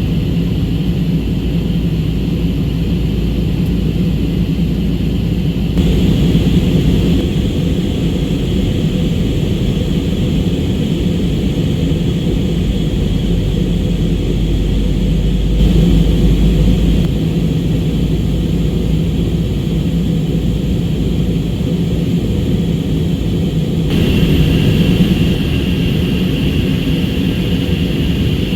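Steady low cabin noise of an airliner in flight, from its engines and the rushing air. The level swells slightly three times: about 6, 16 and 24 seconds in.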